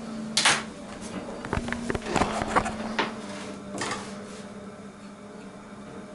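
Knocks, clicks and scraping as the camera is handled and set down, in a short burst about half a second in, a cluster through the middle and one more near four seconds, over a steady low hum.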